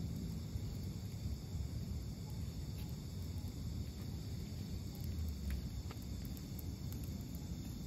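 Insects chirping in a steady high trill over a low, even rumble, with a couple of faint ticks about halfway through.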